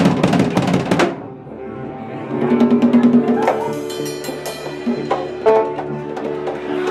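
Live jam: a drum kit played hard with crashing cymbals, stopping suddenly about a second in. Ringing guitar notes then take over, with scattered drum and conga hits.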